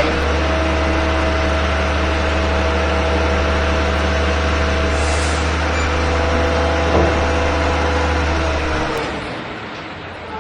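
A heavy truck running steadily, a deep hum with a steady whine over it. A short hiss comes about five seconds in and a knock near seven seconds, then the running note fades away near the end.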